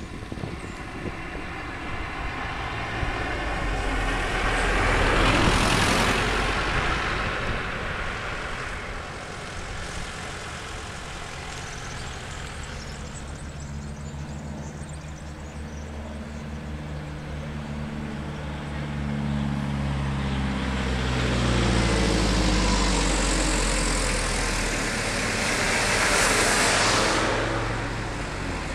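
Road traffic on a street: a car passes about five seconds in, then an engine is heard drawing closer from about halfway and a vehicle goes by close near the end.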